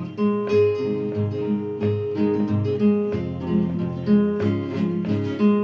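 Background music led by plucked acoustic guitar, notes struck in an even rhythm.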